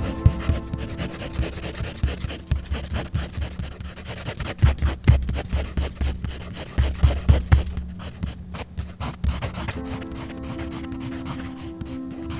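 Graphite pencil scratching across drawing paper in quick, repeated strokes, with a few dull low thumps around the middle, over soft background music.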